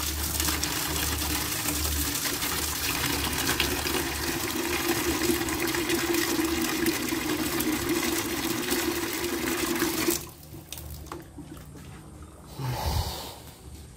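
Water gushing from a pipe into a plastic bucket and splashing as a hand rinses it under the stream. The pouring stops suddenly about ten seconds in.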